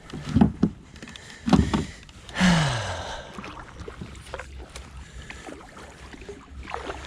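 Kayak getting under way on the water: two loud thumps about a second apart, then a longer rushing sound.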